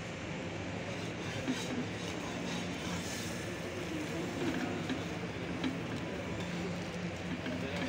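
Steady background hum and hiss from a busy outdoor food stall, with a few light clicks and taps.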